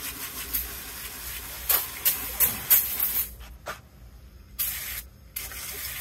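Aerosol spray can hissing as it is sprayed into an open Dana 60 differential housing to clean it out: a long spray with several louder spurts, a pause about three seconds in, then two more short sprays near the end.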